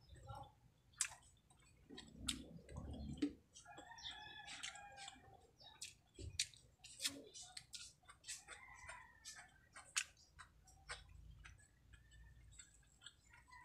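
Quiet close-up eating sounds, with sharp chewing clicks and lip smacks. Chickens call faintly in the background several times, each call lasting about a second.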